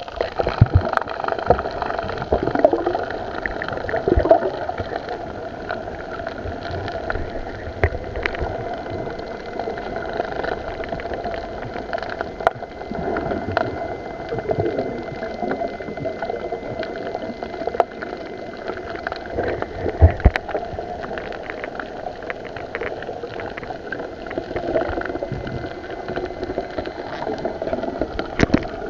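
Water heard through an underwater camera: muffled gurgling and bubbling, with a steady hum underneath and irregular knocks and thumps.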